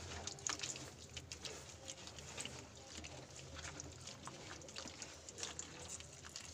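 Hand squeezing and mashing water-soaked tamarind in a bowl of water, working the pulp off the seeds: faint, irregular wet squelching and small splashes.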